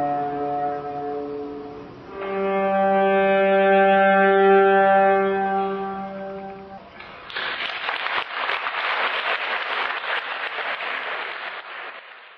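Viola holding long bowed notes: one fades out about two seconds in, then a higher note is held for about four seconds. It is followed by about five seconds of applause that fades out at the end.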